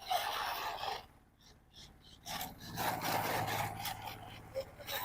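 Brushless 4WD RC off-road car driving over rough ground, with gritty scraping noise: a burst about a second long at the start, then a longer, uneven stretch from about two seconds in.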